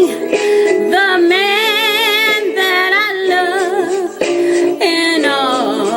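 A slow blues song: a female voice singing long, wavering notes with vibrato and no clear words, over a steady sustained backing accompaniment.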